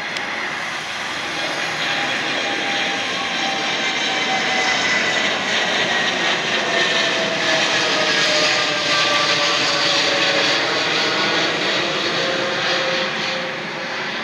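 Boeing 787 airliner's twin GEnx turbofans at climb power passing overhead just after takeoff: a steady jet rush that swells to its loudest a little past halfway, with whining tones sliding down in pitch as the aircraft goes by.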